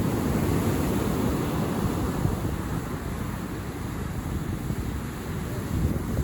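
Wind buffeting the microphone: a steady, rough rumbling rush with no pitch.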